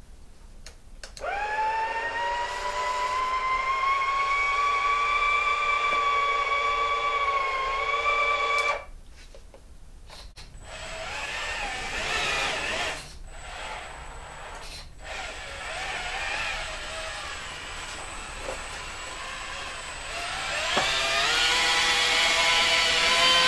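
Small electric motors of a 1:14 scale RC semi-truck with a dump trailer whining. A steady whine starts about a second in and stops abruptly partway through. After a short gap, a wavering whine of changing pitch follows and climbs near the end.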